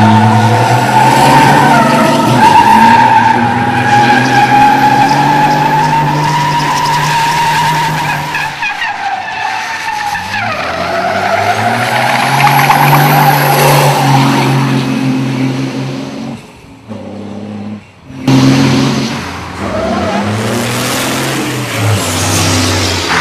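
Race truck's diesel engine running hard at shifting revs while its tyres squeal and skid through smoky spins, the squeal strongest in the first several seconds. About two-thirds in the engine sound drops away briefly, then comes back suddenly.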